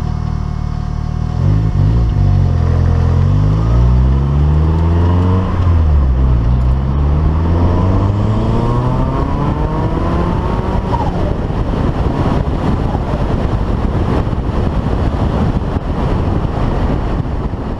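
Ford Escort Mk2's engine accelerating hard through the gears. The revs climb, drop at a gear change about five seconds in and climb again, then give way to a steady loud roar of engine and road noise.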